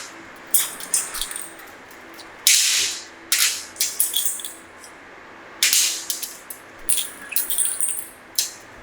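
A series of short hissing spray bursts, some sharp and brief, a few lasting about half a second, with quieter rattling between them.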